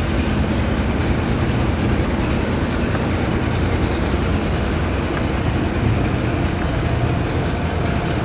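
Steady low engine rumble with a rushing wash of water, as of a vessel's diesel engines running at speed.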